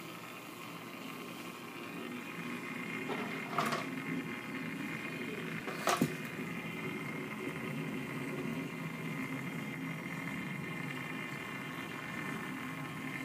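Steady hum and water bubbling of a saltwater reef aquarium's pumps and water circulation, with a few faint steady whining tones above it and growing slightly louder over the first few seconds. Two short knocks, about three and a half and six seconds in.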